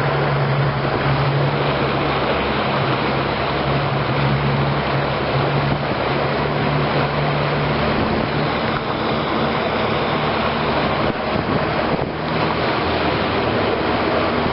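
Boat's outboard motor running steadily under way, its hum sitting low under heavy wind noise on the microphone and water rushing past the hull; the motor note weakens and wavers about two-thirds of the way through.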